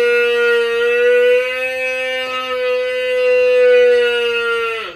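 Water buffalo giving one long, steady call that drops in pitch as it ends, just before the end.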